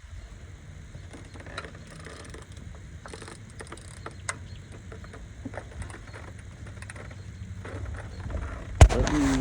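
Hand tools being handled on an engine: scattered light metal clicks and ticks from a ratchet and socket. Near the end comes one sharp, loud metal clank, followed by a run of clattering.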